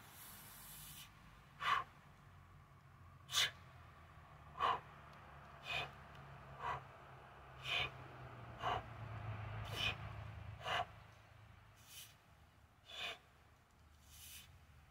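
A man's short, forceful exhalations, about one a second, in time with fast one-arm kettlebell press reps.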